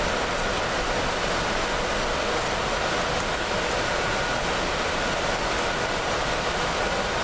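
Steady, unchanging machine noise: an even rush with a faint high whine held through it.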